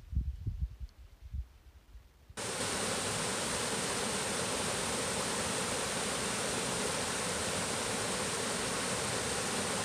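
Mountain stream cascading over rock slabs, a steady rush of water that cuts in abruptly a little over two seconds in. Before it there are a few soft, low thumps.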